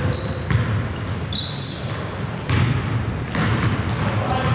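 A basketball being dribbled on a hardwood gym floor, thudding several times. Short high sneaker squeaks come from players cutting on the court, all echoing in the hall.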